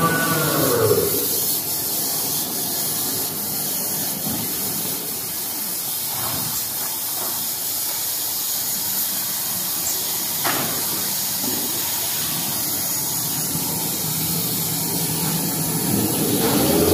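Steady, even hiss of toilet paper converting machinery running in a factory hall. Background music fades out about a second in and comes back near the end.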